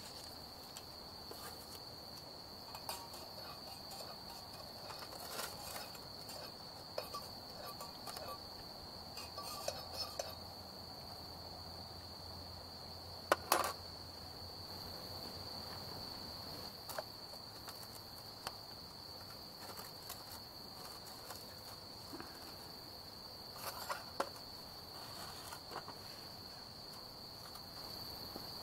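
Insects chirring steadily in one unbroken high tone, with scattered light clicks and knocks and one sharper click about 13 seconds in.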